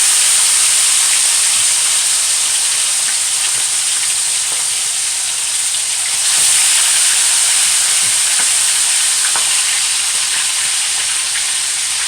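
Seasoned chicken pieces sizzling as they fry in hot oil in a pot, a steady loud sizzle that swells about six seconds in.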